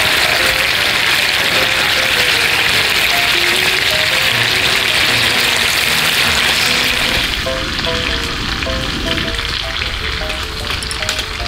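Pork-belly rolls sizzling and bubbling in a frying pan as their vinegar-based sauce reduces to a glaze. The sizzle becomes quieter about seven seconds in. Light background music plays over it.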